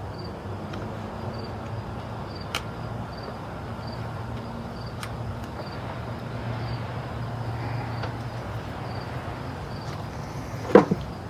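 Steady low background hum with an insect chirping faintly and evenly at a high pitch, a little under twice a second, and a few light clicks. Near the end, a sharp clack with a brief rattle, the loudest sound.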